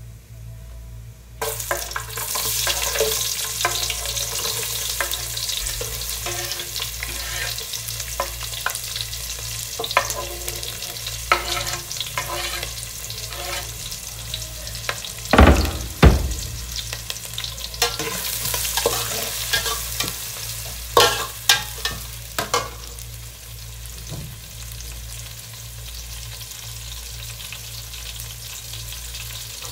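Chopped onions and green chillies tipped into hot oil in an aluminium pot, sizzling suddenly about a second and a half in and then frying steadily. A metal spatula scrapes and taps against the pot as they are stirred, with one heavy knock about halfway through.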